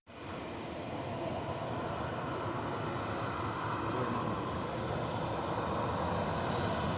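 Distant airliner jet engines running on the runway, a steady rushing noise that grows slowly louder.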